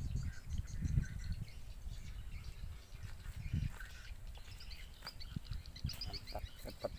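Strong wind buffeting the microphone with a low, gusty rumble, while small birds chirp in strings of short high notes, thickest near the end.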